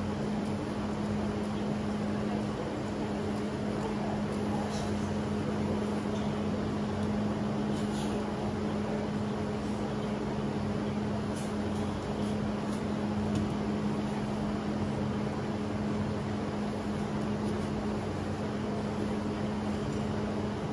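Steady mechanical hum with a constant low tone over a hiss, and a few faint taps.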